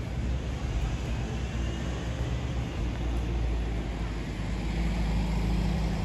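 Steady low rumble of a moving vehicle, with a low droning tone coming in about five seconds in.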